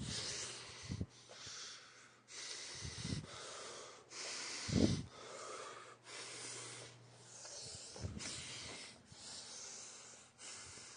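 Quiet breathing close to the microphone, coming as a run of airy breaths about a second each with short pauses between them. A few soft low thumps fall among them.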